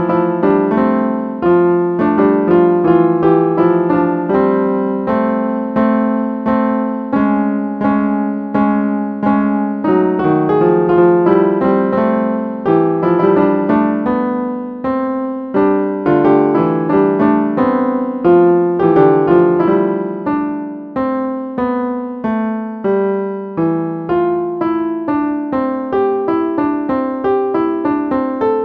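Sampled piano sound from a phone piano app playing a melody, note after note at about two or three a second, each note struck and then fading.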